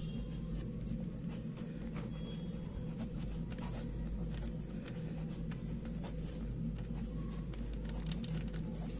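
Handwriting with a pen: short scratchy strokes as a chemical equation is written out, over a steady low electrical hum.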